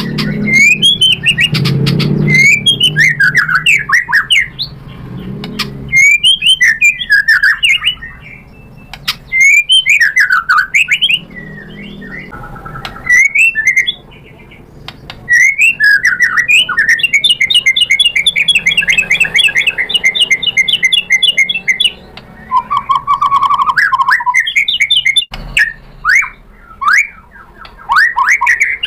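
White-rumped shama (murai batu) singing loud bursts of whistled, sweeping phrases with short pauses between them. In the middle it sings a fast, even trill lasting several seconds.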